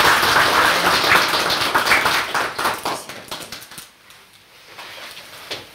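A small group of people clapping, which dies away about three seconds in.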